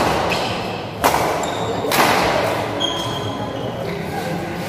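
Badminton rally: sharp racket-on-shuttlecock hits about a second in and about two seconds in, with brief high squeaks of shoes on the court floor, over a steady murmur of voices echoing in the sports hall.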